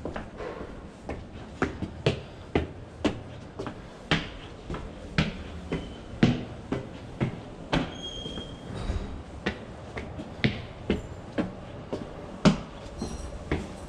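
Footsteps on the stairs and landings of a tiled stairwell, a sharp click about twice a second.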